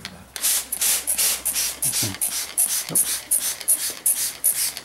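Plastic trigger spray bottle squirting liquid onto a glass mirror in quick, even pumps, about three hissing squirts a second.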